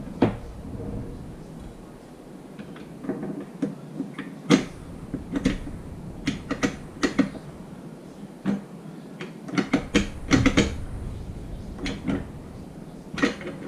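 Molot Vepr-12 shotgun's bolt group and firing pin being fitted back together by hand: a string of irregular sharp metal clicks and clacks, bunched most thickly about two thirds of the way through.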